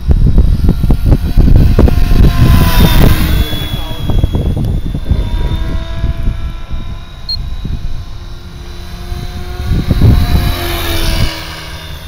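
Electric RC helicopter (S four Concept with a Scorpion 4025-890 brushless motor on 6S) flying overhead, its motor and rotor whine bending in pitch as it passes, about three seconds in and again near the end. Heavy gusty rumble of wind on the microphone lies under it, loudest in the first few seconds.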